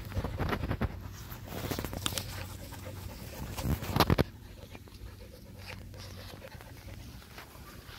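Keeshond puppy panting as it noses and mouths a soccer ball through the grass, with a run of scuffs and knocks that is loudest about four seconds in and quieter after.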